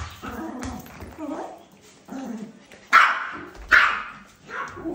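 Yorkshire terrier barking excitedly during ball play: three short, sharp, high yaps in the second half, with quieter sounds before them.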